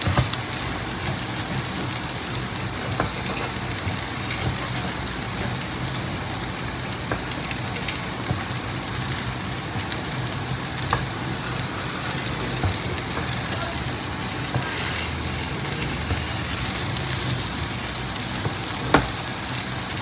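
Kimchi pancake shallow-frying in plenty of hot oil in a pan: a steady crackling sizzle while the first side crisps. A few faint clicks come from a plastic spatula nudging the pancake against the pan.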